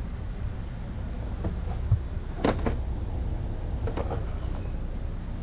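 Handling noise of someone rummaging for a plastic pry tool: a few sharp clicks and knocks, the loudest about halfway through, over a low steady rumble.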